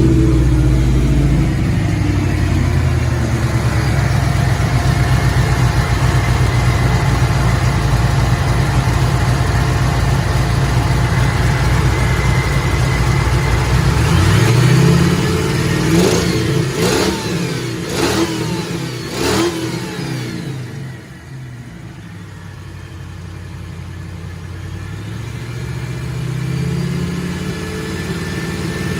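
Supercharged 5.0 V8 of a 1994 Ford F-150 running at a rough idle, the fault the owner is chasing. About halfway through it is revved several times in quick throttle blips, then drops back to a quieter idle that slowly builds again.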